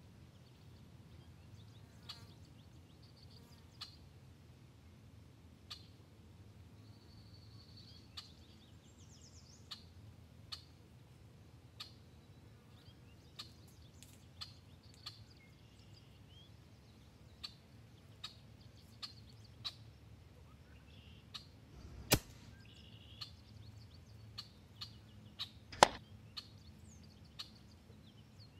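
A quiet backyard with faint bird chirps and scattered small clicks, then two sharp cracks about four seconds apart near the end, the second the louder: a shot from a .25-calibre EDgun Leshiy 2 air rifle at a squirrel, which is knocked down.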